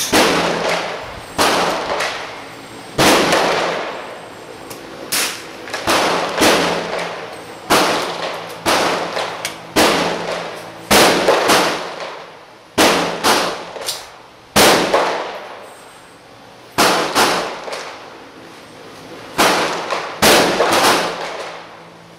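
Gunshots on a shooting range: about twenty sharp cracks, irregularly spaced and sometimes two or three in quick succession, each trailing off in echo.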